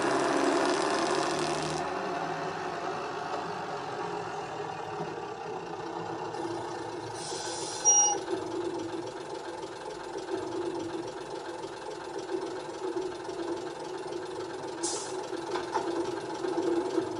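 Sound decoder in a model Leyland-engined first-generation diesel multiple unit playing its diesel engine sound as the railcar pulls away, a steady drone. There is a sharp click about eight seconds in and a short hiss near the end.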